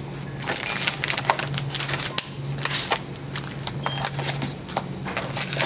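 Crinkling and rustling of plastic packaging and paper as an instant noodle bowl's paper lid is peeled back and the wrapped noodle block and sauce packets are taken out. A steady low hum runs underneath.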